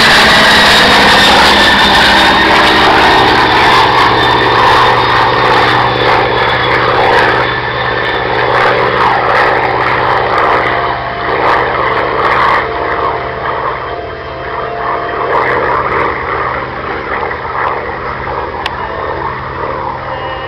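An A-10 Thunderbolt II's twin turbofans and an A-1 Skyraider's radial piston engine passing low overhead together. A high whine falls slightly in pitch as they go by, and the sound then fades gradually as the pair flies away.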